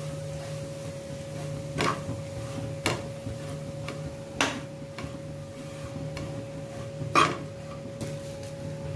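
Metal slotted spatula stirring grated coconut and chopped dry fruits roasting in ghee in a pan, with four sharp knocks of the spatula against the pan, the loudest about seven seconds in. A steady hum runs underneath.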